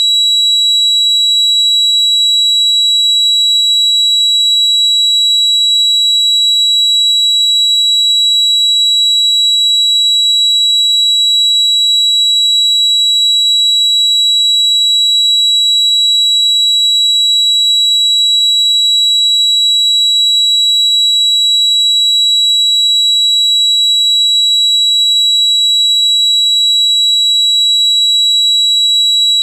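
Tinnitus sound effect: a single steady high-pitched ringing tone with a fainter higher overtone, held without any change in pitch or loudness.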